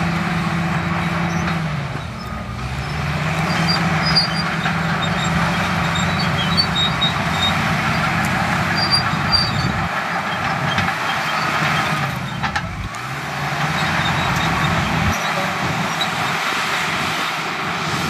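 Komatsu D65PX bulldozer's diesel engine running under load. The engine note sags and climbs back twice, about two seconds in and again around two-thirds of the way through.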